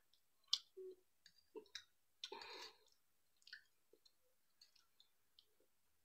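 Near silence broken by a few faint clicks of a metal fork against a ceramic plate as it works through instant noodles, with a short soft rustle about two and a half seconds in.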